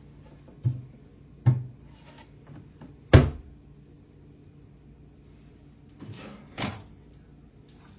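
Several separate knocks and thumps from a storage ottoman and its lid being handled. The loudest comes about three seconds in, and two more come close together near the end.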